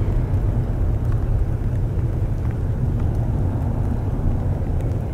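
Distant jet engines of a Boeing 787-8 taxiing: a steady low rumble.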